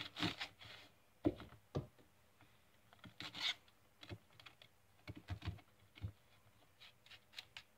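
Cauliflower pieces being rubbed by hand across a flat stainless-steel hand grater: a series of short, irregular scraping strokes.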